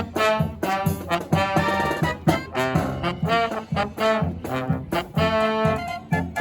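Brass marching band playing an upbeat swing-style tune: trombones and trumpets carry the melody over a steady beat of drum strokes.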